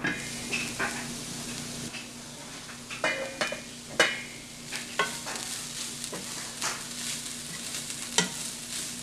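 Chopped ponnanganni greens sizzling in a hot frying pan while a wooden spoon stirs them, with scrapes and knocks of the spoon against the pan every second or so. The pan's metal lid is lifted off at the start.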